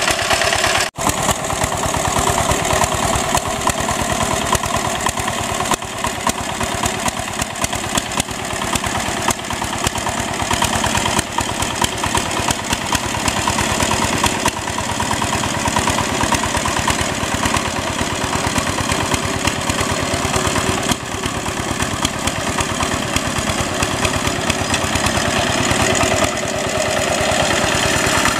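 Single-cylinder diesel engine of a two-wheel hand tractor running steadily under ploughing load in a flooded rice paddy, with a fast, even chugging. It cuts out for a split second about a second in.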